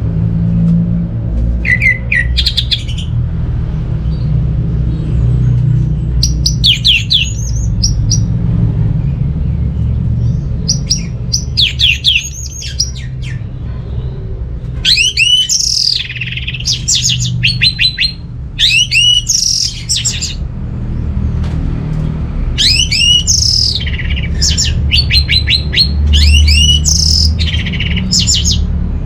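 Orange-headed thrush (anis merah) singing: repeated phrases of fast, sweeping whistled notes, each a second or a few long, with short pauses between them, over a steady low hum.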